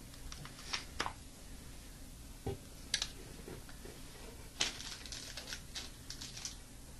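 Light clicks and taps of a glass slide being swapped onto a microscope stage: a few single clicks, then a quick run of small ticks about two-thirds of the way through as the new slide is slid into place.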